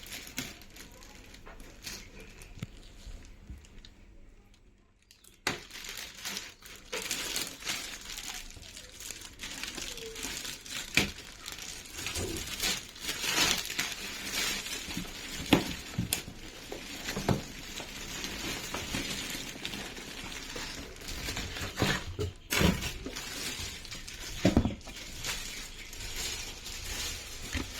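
Plastic and cardboard printer packaging crinkling and rustling as it is handled, with many scattered clicks and knocks. It is quiet for the first few seconds, and the handling starts about five seconds in.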